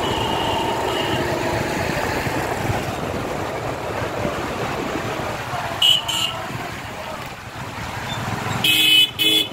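A group of motorcycles riding together, their engines running steadily under road noise. A short double horn toot comes about six seconds in, and two louder horn honks near the end.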